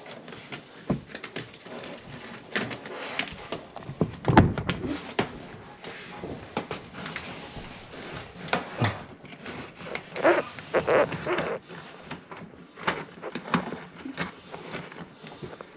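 Scattered knocks, clicks and rustling from handling a clothes dryer and its vent hose in a tight space, with one heavy thump about four seconds in.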